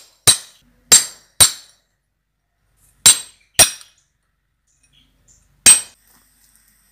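Sharp metallic clinks as welded wire mesh is struck with a hand-held cutting block over an iron plate, cutting through the wires. Six strikes come in short runs about half a second apart: three, then two, then a single one near the end.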